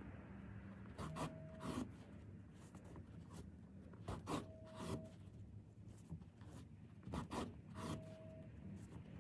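Yarn being drawn by hand through a carpet's side edge as the edge is overcast with a needle: short, quiet rasping pulls, coming in pairs every few seconds.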